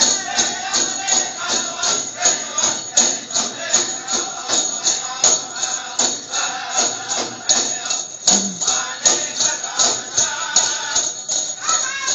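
Powwow song for a prairie chicken dance: a steady, fast drumbeat of about three to four beats a second, with bells jingling on each beat and high singing in places.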